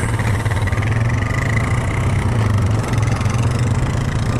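ATV engine running steadily under way on a trail, with an even low drone.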